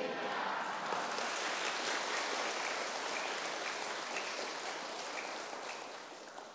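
A large seated congregation applauding, many hands clapping at once; the clapping dies away near the end.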